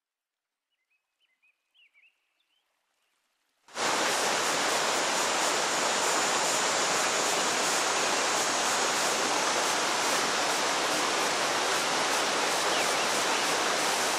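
Rushing white water of river rapids in spate, a steady loud noise that starts suddenly about three and a half seconds in after near silence.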